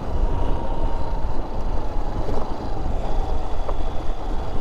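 Wind rushing over the microphone together with the engine of a Honda XR single-cylinder dual-sport motorcycle, running steadily while riding.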